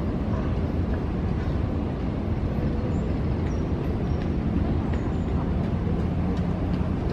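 Steady low rumble of city traffic. A few faint, high chirps of small birds come through in the middle.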